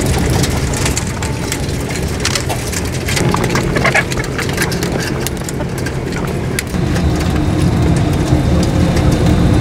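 Caged laying-hen house: a steady low machine hum with many sharp clicks and rattles of hens moving on the wire-mesh cage floors.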